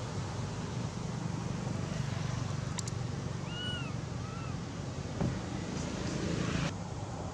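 Steady outdoor background rumble and hiss. About halfway through, two short high chirps rise and fall, and near the end the hiss drops suddenly.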